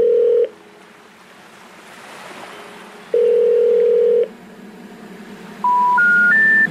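Electronic tones in the background music: a steady tone about a second long at the start and another about three seconds in, then three short beeps stepping up in pitch near the end, over a faint hiss.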